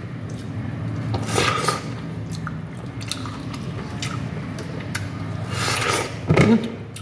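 Fresh pineapple bitten and chewed close to the microphone, with wet biting and chewing noises and small clicks; the loudest bites come about a second and a half in and again near the end. A steady low hum runs underneath.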